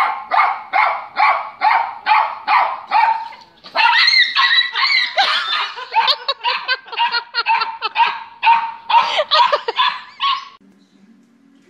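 Small dog barking repeatedly, about three sharp barks a second. About four seconds in the barks turn faster and run together, then stop about ten and a half seconds in.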